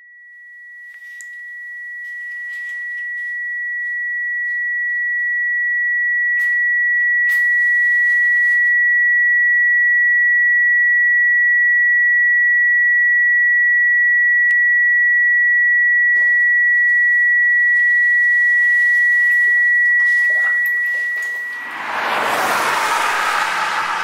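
A single steady high pure tone, a film sound-design ringing, swells in slowly, holds, and fades out about three seconds before the end, with faint clicks and short scratchy noises beneath it. Near the end a loud rushing whoosh takes over.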